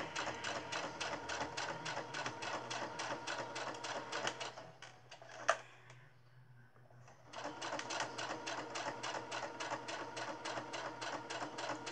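Electric sewing machine stitching at a steady rate, about eight stitches a second. It stops a little over four seconds in, a single sharp click follows, and after a short pause the machine starts stitching again at the same rate.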